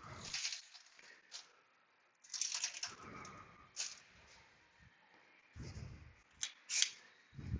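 Handling noises while working at an engine: short scattered rustles and brief hissy scrapes, with a couple of dull low knocks near the middle and end.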